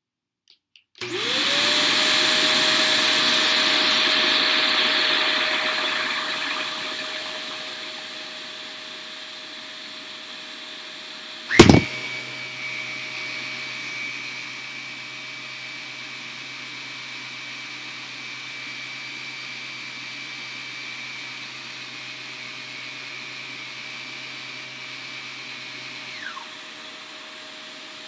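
Upright vacuum cleaner switched on about a second in, its motor spinning up to a steady whine with the hair-clogged bottom roller turning; it is loudest for the first few seconds, then settles lower. A single sharp knock about twelve seconds in.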